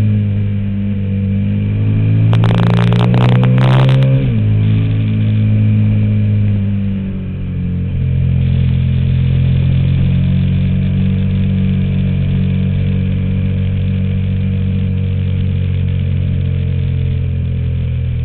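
KTM 990 Super Duke's V-twin engine running under way, heard close from the bike. A cluster of sharp crackles comes about two to four seconds in, the engine note then drops, and it settles into a steady cruise.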